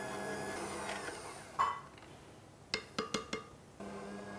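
Electric stand mixer beating cake batter in a glass bowl, its motor humming steadily, then winding down with falling pitch about a second in. A few sharp clicks and knocks follow, and a steady hum starts again near the end.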